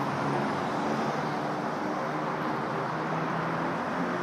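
Steady background noise of distant traffic, with faint low hums that shift slightly in pitch.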